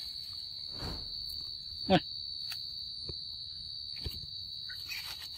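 Steady high-pitched drone of insects in the surrounding vegetation, with one short voice-like call about two seconds in and a few faint clicks.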